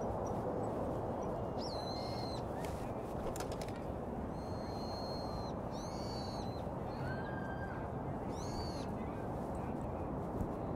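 Steady street and wind noise while riding a bicycle through city traffic, with a short high-pitched chirp or tone repeating every two to three seconds.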